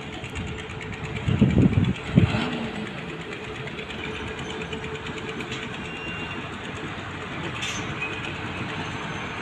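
Diesel cargo trucks running at low speed, a steady engine rumble. A louder burst comes about a second and a half in.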